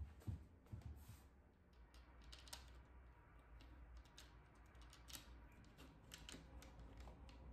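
Faint, irregular small clicks of curtain hooks being fitted into the runners of a curtain rail as a lace curtain is hung, with a couple of soft thumps of stepping up onto a chair near the start.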